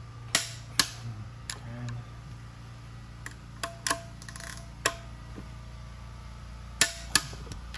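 About nine sharp metallic clicks at uneven intervals as a wrench and socket work the bolts on a BMW M50 cylinder head, with two pairs of louder clicks near the start and near the end. A steady low hum runs underneath.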